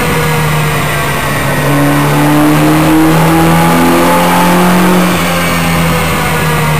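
Renault Gordini DOHC (twin-cam) engine running hard under load on a power dyno, held at high revs, its pitch rising slightly in the middle and easing a little toward the end.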